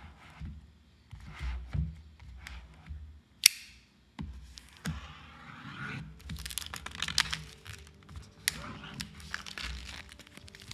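Background music under the crinkling and crackling of plastic shrink-wrap on a tripod box as it is handled and turned over. The crackling grows dense in the second half, and there is one sharp click about three and a half seconds in.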